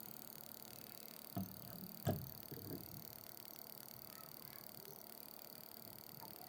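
Homemade reed-switched pulse motor running faintly, its rotor pulses heard as rapid light ticking over a steady high whine. Two short knocks about one and a half and two seconds in.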